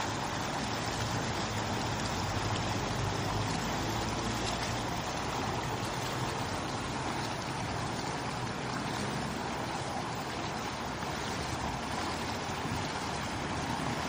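Small stream pouring between boulders in a little cascade, a steady splash and rush of water.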